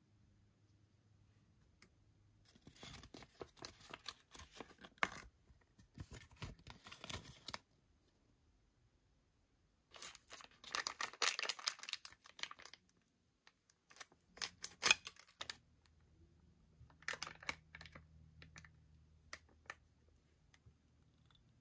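Toy packaging being handled and opened by hand: several bursts of rapid rustles and clicks, with short quiet gaps between them.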